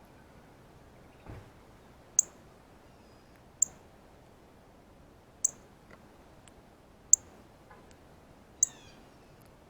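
Male northern cardinal giving its sharp feeding chip call five times, about one every second and a half, while eating seeds. A soft thump comes before the first chip, and near the end a fainter bird call of several falling notes can be heard.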